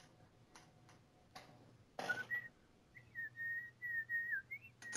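A man whistling through his lips, a short wavering tune that starts about two seconds in and runs on to the end.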